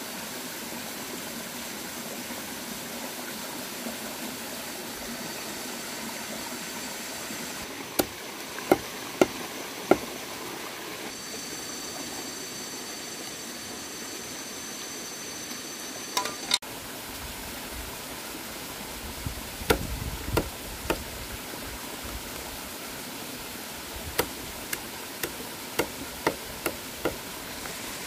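Steady rush of a shallow stream running over rocks, with sharp knocks and taps in small clusters on top of it. A thin high steady whine sounds through the middle stretch and stops abruptly.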